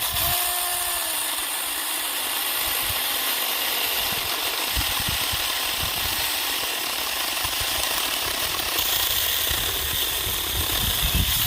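Saker mini 4-inch 20V cordless electric chainsaw running steadily for about eleven seconds while cutting through a spruce branch about 2.5 inches thick. It starts and stops abruptly.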